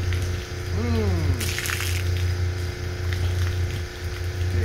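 Steady low hum of a sailboat water maker's pump running while its brine discharge water pours, with a brief splash of water about a second and a half in.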